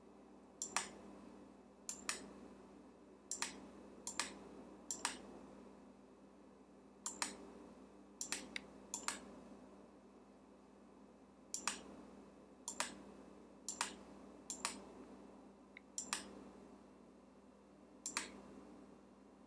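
Clicking of a computer pointing-device button, about fourteen sharp clicks at irregular intervals, each a quick double tick of press and release. A faint steady hum lies beneath.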